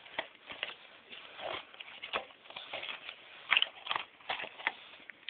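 Hands rummaging in an opened cardboard phone box: irregular light clicks, taps and rustles as an accessory is taken out of it.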